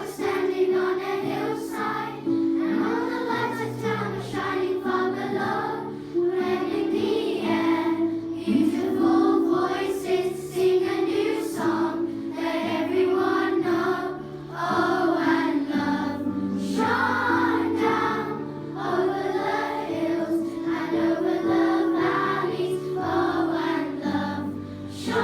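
A children's choir singing a Christmas song in unison with instrumental accompaniment holding sustained low notes.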